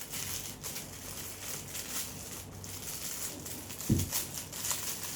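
Plastic packaging crinkling and rustling as a fidget toy is unwrapped and handled, with a single low thump about four seconds in.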